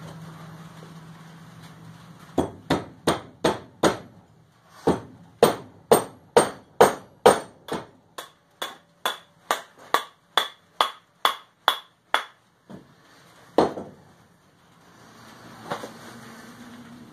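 Hammer driving a metal step wedge into the eye of a wooden hammer handle, locking the head on. First come five quick blows, then after a short pause a steady run of about eighteen blows at about three a second, many with a light metallic ring. A single last blow follows a second later.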